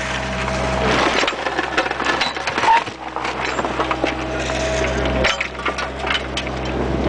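Bobcat 430 mini excavator bucket scraping and crunching through earth, heard from inside the bucket, with many sharp cracks and clicks over the steady running of the excavator's engine.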